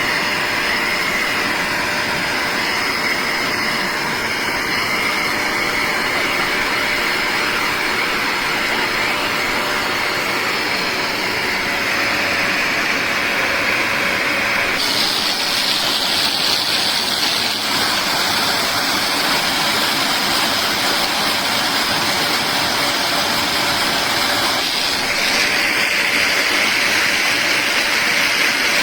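BISSELL Little Green portable carpet and upholstery cleaner running: a steady motor whine with suction noise. Its tone shifts abruptly about halfway through and again near the end, and it cuts off at the very end.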